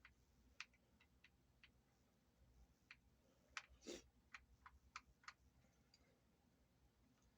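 Faint, irregular small clicks, about a dozen, with one fuller knock about four seconds in. A small Phillips screwdriver is backing tiny tuner screws out of a guitar headstock.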